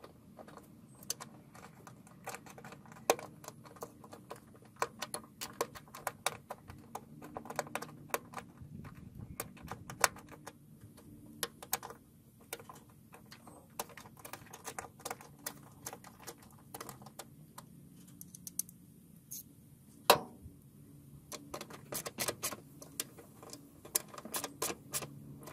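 Hand ratchet wrench clicking in short, irregular runs, with metal tools clinking, as bolts are run down; one sharp clink about twenty seconds in is the loudest.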